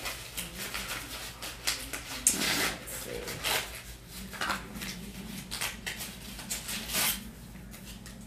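Hands rustling and crinkling a small canvas drawstring pouch and the paper note inside it as it is opened, in irregular scratchy rustles with a louder stretch between two and three seconds in.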